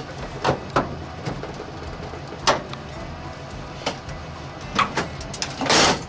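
Engine idling with a steady low hum, under a few light knocks and clicks and a short rustling thump near the end.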